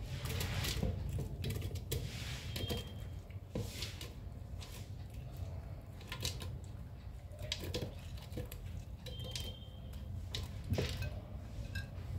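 Watermelon chunks dropped by hand from a ceramic plate into a plastic blender jar: irregular soft knocks and clicks of the wet fruit and the plate against the jar.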